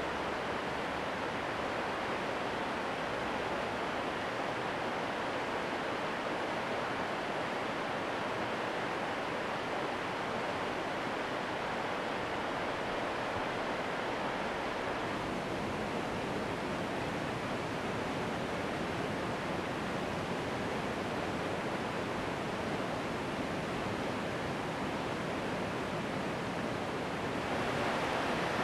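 River rapids rushing over rocks: a steady rush of white water, growing a little louder and brighter near the end.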